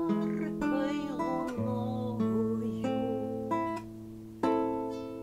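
Nylon-string classical guitar playing the closing chords of a song, plucked one after another. The last chord, struck about four and a half seconds in, is the loudest and is left to ring and fade.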